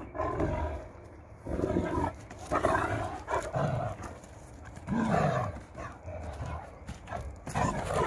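Dogs growling in play as they wrestle: several growls, each up to about a second long, some sliding down in pitch.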